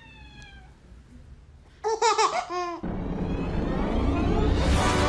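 A baby giggling in three short bursts, then a swelling rush of noise that leads into music near the end.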